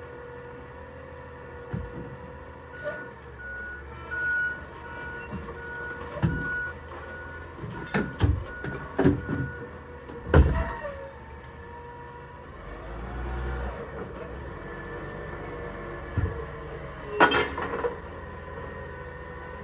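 Recycling truck running, its reversing beeper sounding about twice a second for several seconds, followed by a series of loud bangs and clatters of collection work.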